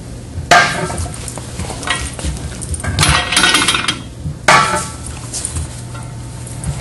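Steel tire mounting bar clanking and scraping against a steel grader wheel rim as the tire bead is levered on: sharp metallic clanks with a short ring about half a second in and about four and a half seconds in, and a longer scraping clatter around three seconds in.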